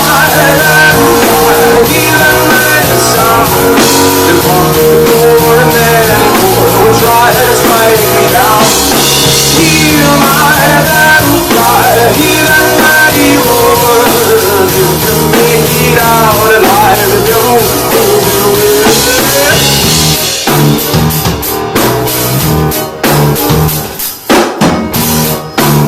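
Live rock band playing loudly, with the drum kit prominent under sliding melodic lines. About twenty seconds in, it breaks into choppier, accented drum hits.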